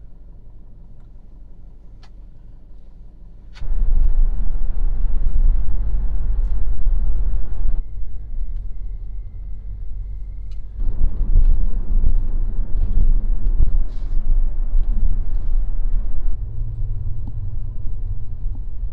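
Rumble of a car driving, heard inside the cabin. It is fairly quiet at first, then jumps abruptly much louder about three and a half seconds in and shifts abruptly in character a few more times.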